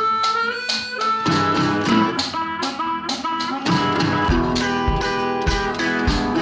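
Background music: plucked acoustic guitar with a steady rhythm and a sliding note near the start.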